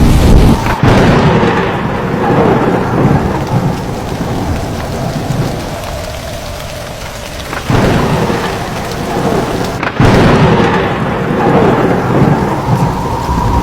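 Rain falling steadily in a thunderstorm, with thunder cracking about a second in and twice more in the second half, each crack followed by a rumble that slowly dies away.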